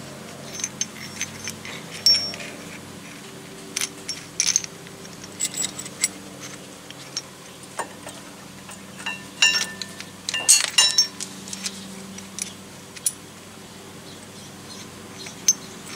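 Metal parts of a brake caliper wind-back tool clinking and tapping as its adapter and spacer washer are handled and fitted. Irregular small clicks, some with a brief metallic ring, come thickest about two thirds of the way through.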